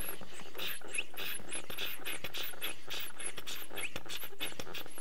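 Hand pump of a radiator pressure tester being worked rapidly, a quick run of short scraping, hissing strokes as it pumps air into the engine's cooling system to bring it up to pressure.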